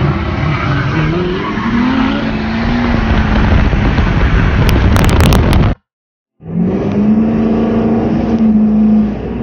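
Diesel pickup engine revving hard while rolling coal, blowing thick black smoke; its note climbs over the first couple of seconds and then holds high, with a few sharp clicks about five seconds in. It cuts off, and after a brief silence another diesel pickup is heard under throttle, its engine note stepping up and holding steady.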